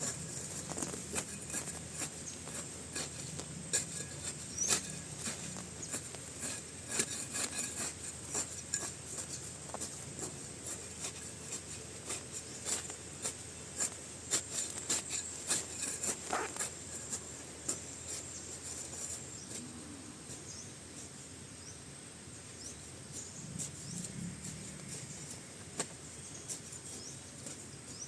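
Irregular clicks and rustles, as of things being handled, dense for the first two-thirds and thinning out after that, over a steady high insect trill.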